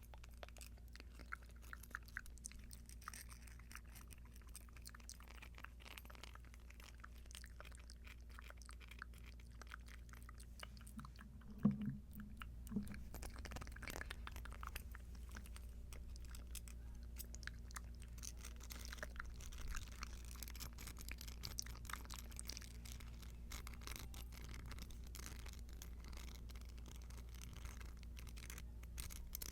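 Earrings handled close to the microphone: many small, irregular clicks and crackles, with one louder knock about twelve seconds in.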